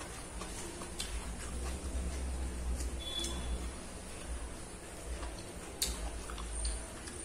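Eating by hand: small scattered clicks and wet smacks of fingers working rice and pork curry on a plate and of chewing, over a low rumble. The sharpest click comes about six seconds in.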